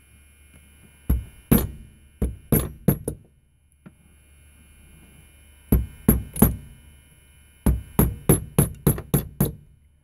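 A small hammer tapping on a Dexter deadbolt lock cylinder to drive in a detent that is seized and won't depress, apparently gummed up by oil. The taps are sharp and come in three quick bursts: about six, then three, then about eight.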